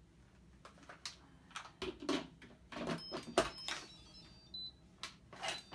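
Stainless steel Instant Pot lid being set onto the pot and twisted shut: a string of metal clatters and clicks, the sharpest about three and a half seconds in.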